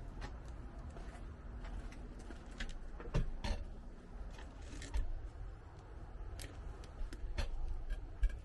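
Scattered light clicks and knocks of objects being handled, with a louder knock about three seconds in and another about five seconds in, over a low rumble.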